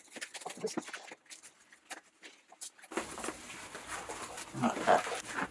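Rustling, scraping and small clicks of a padded fabric motorcycle hand cover being worked down over a plastic handguard by hand. A brief, louder low sound with a pitch to it comes near the end.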